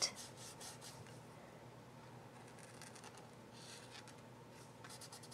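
Faint scratchy strokes of a felt brush-tip artist pen rubbing over paper, in a few short spells of scribbling.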